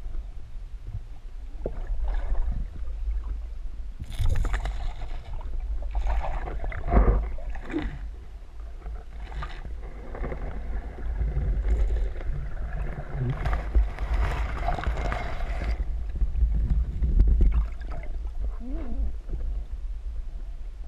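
Underwater sound on a spearfisher's camera: a constant low rumble of water moving against the housing, with irregular gurgling and rustling bursts as the diver swims through lake weed.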